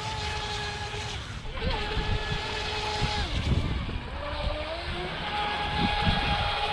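Wltoys WL916 RC boat's brushless motor and propeller whining at a steady high pitch at speed. The whine dips briefly, drops away about halfway through, then rises in pitch and holds steady again near the end.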